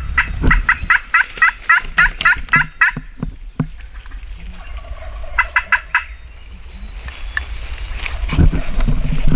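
Turkey yelps in a quick, even series of about five notes a second lasting some three seconds, followed by a shorter series about halfway through. A louder, low sound builds near the end.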